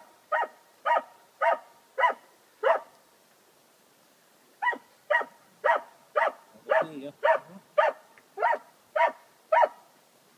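A dog barking loudly and steadily, about two barks a second: a run of six, a pause of about two seconds, then a run of about ten.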